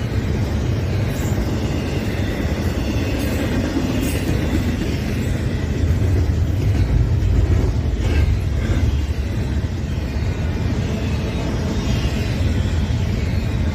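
Double-stack intermodal freight train's well cars rolling past, a steady rumble of steel wheels on rail, slightly louder midway through.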